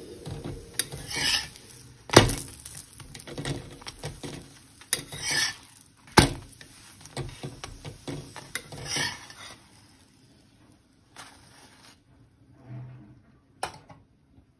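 Steel spatula clinking and scraping against a tawa as a stuffed paratha fries, over a light sizzle. The clinks and scrapes come every second or two and die away after about ten seconds, with one more sharp clink near the end.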